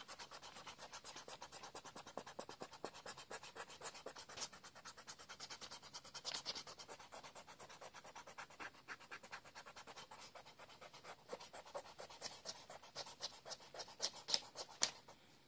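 Pencil eraser rubbing back and forth on paper in quick, even strokes, erasing pencil sketch lines. It is faint, with a few louder strokes near the end.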